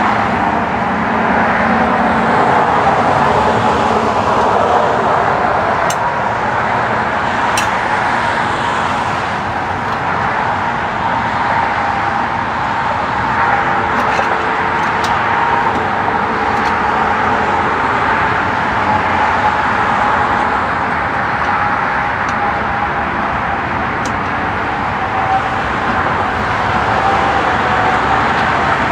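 Steady motor-vehicle noise with a constant hum, and a few faint clicks.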